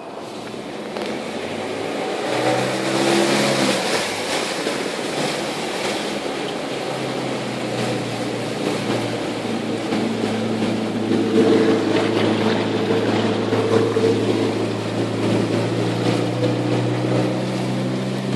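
Suzuki Vitara engine pulling through deep floodwater, with water rushing and splashing against the car. The engine's pitch rises a couple of seconds in and then holds steady, and the whole sound grows louder over the first few seconds.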